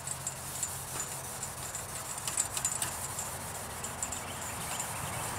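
A gray abrasive scuff pad rubbed over the bare aluminium grill shell: a steady scratchy rubbing with many small irregular clicks and scrapes, scuffing the metal after its anodizing was stripped.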